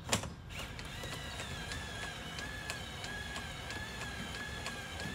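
Hand-cranked truck camper corner jack being wound up to raise the camper: a sharp knock at the start, then steady ratcheting clicks about three a second over a thin, wavering squeak from the turning crank.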